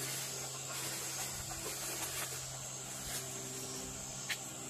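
Steady high-pitched drone of insects in the woods, with one sharp click about four seconds in.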